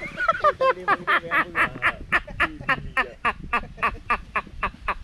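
A man laughing in a long, unbroken run of quick ha-ha bursts, about four or five a second, a wheezy, honking laugh likened to someone short of breath.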